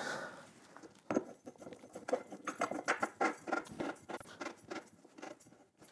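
Hollow steel pole of an audio stand being twisted by hand onto its mounting bolt in the base shelf: a run of quick, irregular scraping clicks, several a second.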